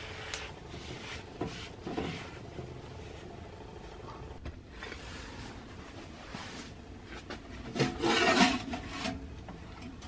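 A towel rubbing around the inside of a cast-iron skillet, then, about eight seconds in, a louder clattering scrape as a cast-iron skillet is shifted across the steel top of a wood stove.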